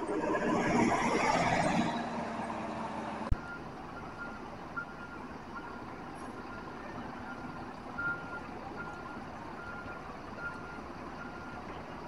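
A bus's diesel engine runs loudly close by for the first two seconds. After a sharp click, a reversing alarm beeps steadily at about two short beeps a second over a low engine rumble, stopping shortly before the end.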